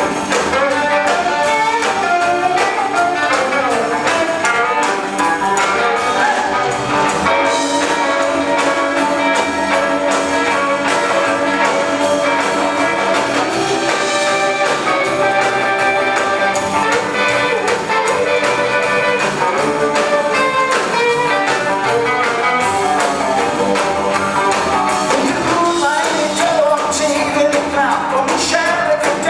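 Live band playing rock and roll with two electric guitars, upright double bass and drums, over a steady drum beat.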